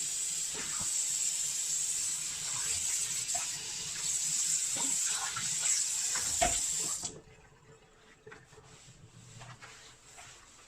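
Tap water running into a sink over the vacuum cleaner filters being rinsed. The tap is shut off abruptly about seven seconds in, leaving only faint clicks and knocks.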